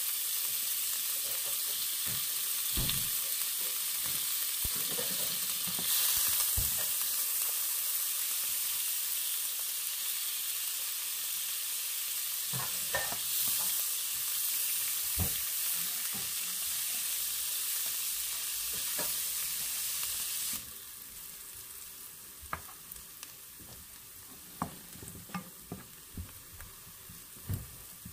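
Butter frying with a steady sizzle in a hot nonstick wok, with scattered taps and scrapes of a spatula stirring against the pan. About three-quarters of the way through the sizzle suddenly drops much quieter, and the stirring scrapes and taps stand out over a softer frying hiss.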